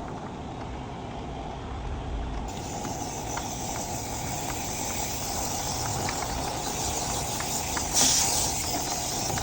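Steady rushing, hissing air noise that grows fuller about two and a half seconds in. Scattered light ticks run through it, and a short louder hiss comes about eight seconds in.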